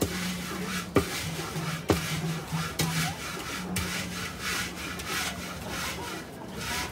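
Wooden spatula and hand scraping and turning syrup-coated puffed grains around a large metal pan, in repeated rough strokes, with sharper knocks about one and two seconds in.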